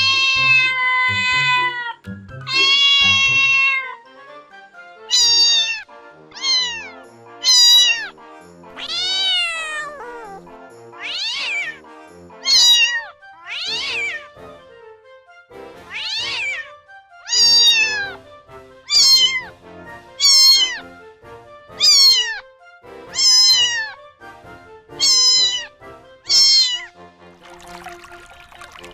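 Domestic cat meowing over and over: two long drawn-out meows, then a string of short meows that rise and fall in pitch, coming roughly every second or so. Soft background music plays underneath, and a brief rushing noise comes near the end.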